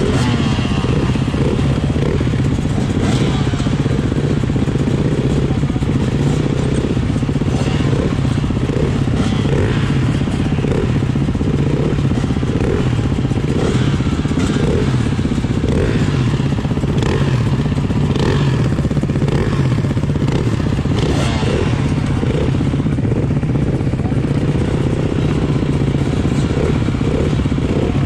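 Beta 390 RR-S's four-stroke single-cylinder engine idling steadily under the rider, mixed with several other dirt bikes idling.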